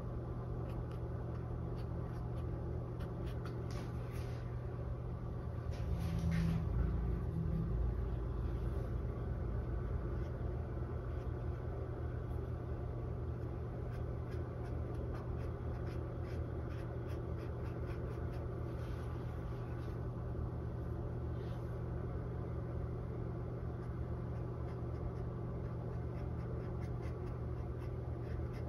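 Small flat paintbrush scratching and dabbing in short strokes on a textured canvas, over a steady low hum.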